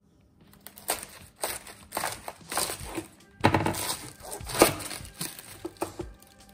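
Large kitchen knife crunching through a head of white cabbage on a plastic cutting board, in a run of crisp, crackling cuts. The loudest cuts come about three and a half seconds in and again about a second later.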